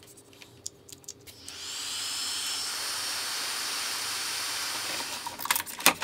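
A small electric blower or motor spins up with a rising high whine about a second and a half in, runs steadily with a hiss for about four seconds, then stops. It is followed by clicks and rattles of wires being handled.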